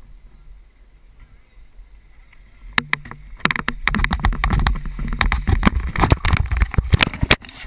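Wind buffeting a body-worn GoPro's microphone as the wearer picks up speed across pavement, rising sharply about three seconds in, then a rapid run of hard knocks and scrapes as he crashes and the camera tumbles.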